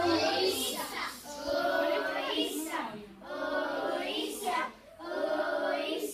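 A group of children singing a song together, in short phrases of about a second and a half with brief breaks between them.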